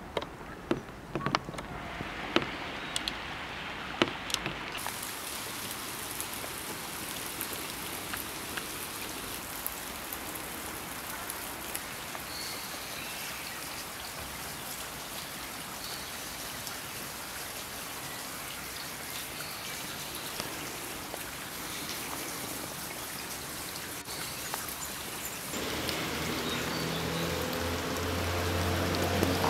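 Steady rain falling, with single drops ticking sharply in the first few seconds. A low steady hum joins near the end.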